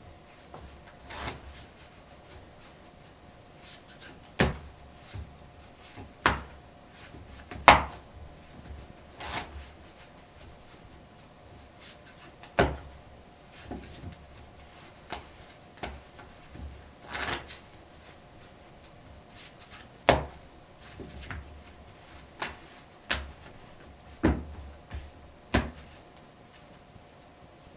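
A deck of playing cards being shuffled and cut by hand over a cloth close-up mat: a string of short card snaps, brief riffles and taps of the squared deck, one every second or two. It is a card cheat's shuffling sequence that looks like a genuine shuffle.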